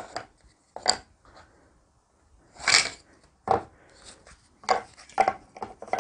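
Thick cardboard game tiles being handled and set down on a cardboard box lid: a handful of light, irregular taps and clicks, with one longer rustle a little before the middle.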